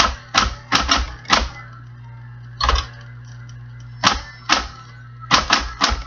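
Electric typewriter being typed on: about eleven sharp keystrokes at an uneven pace, with short pauses between bursts, over a steady low hum.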